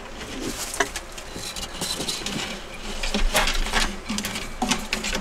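Savannah monitors' claws scratching and scrabbling on wooden boards, with light knocks. The scrapes come in irregular bouts and are loudest about three and a half seconds in.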